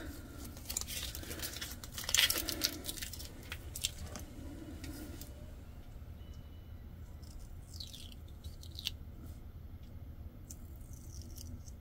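Rustling and crinkling of a cut stencil sheet on its backing paper as it is handled and set down, loudest in the first few seconds. Then faint scratches and light clicks as a weeding hook picks pieces out of the stencil.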